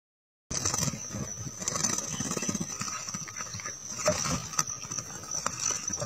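Outdoor ambience that starts about half a second in: a low, uneven rumble with a steady high-pitched tone above it and a few faint clicks.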